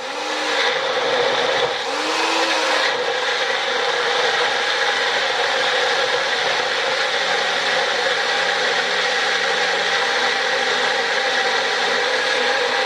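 Electric blender running steadily, puréeing cooked onion, tomato and cashew gravy into a smooth sauce.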